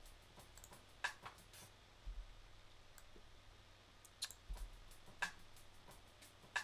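Faint sharp clicks, the loudest coming about every second and a third, with a few quieter taps between them, over a low steady hum.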